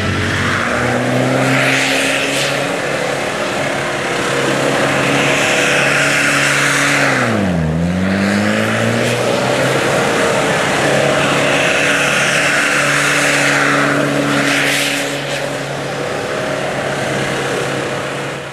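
Mitsubishi Pajero 4x4's engine held at steady revs as it drives doughnuts on wet grass, with a hiss that swells and fades every few seconds as it circles. About seven and a half seconds in, the revs dip sharply and climb back.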